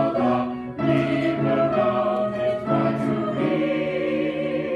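Choir singing held chords in parts, with a short break a little under a second in before the next phrase.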